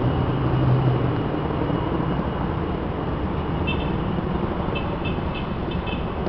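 Helicopters flying over at a distance, a steady low rotor sound blended with city noise. A few short high chirps come about two-thirds of the way through.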